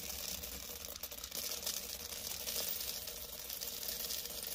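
Water trickling steadily.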